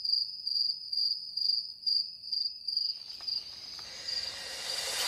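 Cricket chirping about twice a second, a high steady trill that fades out about three seconds in. A swell of noise rises in its place.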